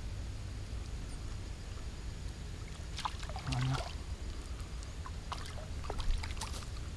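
A hooked palometa splashing at the water's surface as it is reeled in on a spinning rod. There are two clusters of short splashes and clicks, about three seconds in and again around six seconds in, over a steady low rumble.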